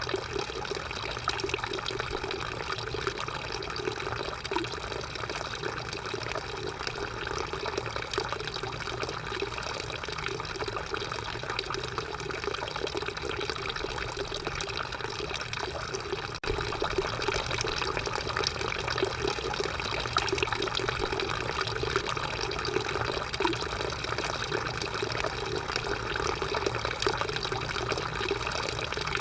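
Drinking fountain running, its stream of water flowing steadily. It gets a little louder about halfway through.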